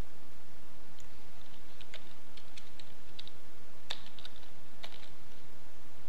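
Computer keyboard typing: a run of irregular key clicks lasting about four seconds, over a steady background hiss.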